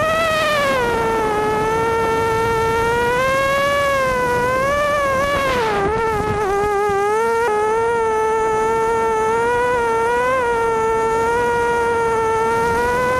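Five-inch FPV racing quadcopter's Cobra 2204 2300kv motors and HQ props whining from on board, the pitch rising and falling with the throttle and dipping briefly about six seconds in.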